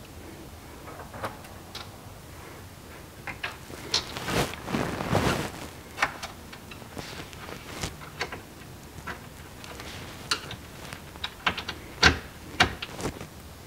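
Small metal hardware being handled while bolts are fitted through a panel and lined up with 80-20 T-slot nuts: irregular clicks and taps, with a longer scraping rustle about four seconds in.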